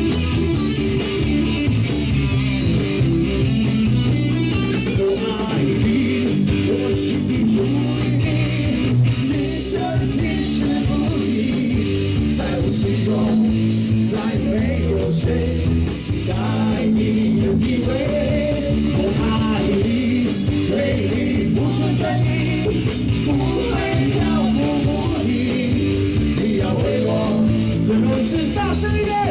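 Live rock band playing amplified, with electric guitar, bass and drums keeping a steady beat, and a melodic line that bends in pitch over the band in the second half.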